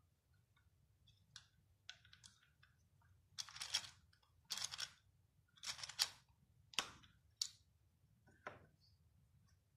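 Hard plastic clicking and scraping as the black housing of a LEGO Power Functions M motor is handled and pulled apart by hand. There are about half a dozen short scrapes and clicks, the longest about half a second.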